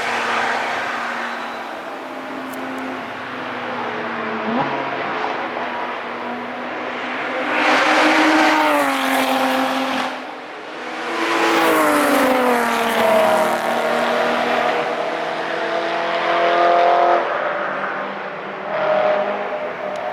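Cars driving past on a race track, engines under power. Two loud pass-bys about eight and twelve seconds in drop in pitch as each car goes past, with a smaller one near the end and other engines heard in between.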